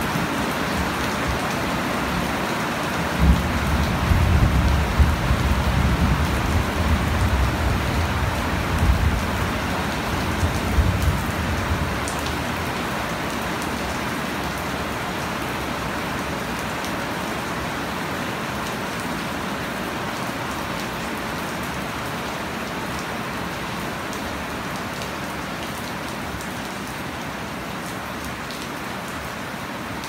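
Heavy rain falling steadily on leafy plants and bare soil, a dense even hiss. From about three seconds in until about twelve, a low rumble with a few thumps sits under it, and the rain slowly grows quieter toward the end.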